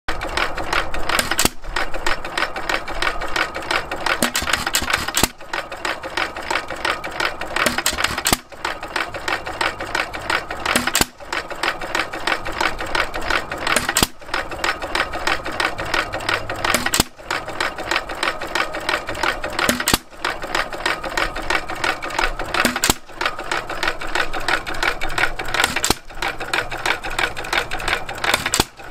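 Simplicity 1 1/2 hp single-cylinder hit-and-miss engine with a Webster magneto running, a fast steady mechanical clatter with a brief dip about every three seconds. It is running a bit fast, cold and on old gas.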